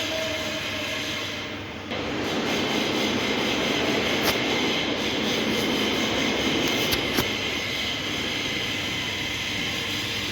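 Welding arc running steadily with a hissing noise, louder from about two seconds in, with a few short sharp pops.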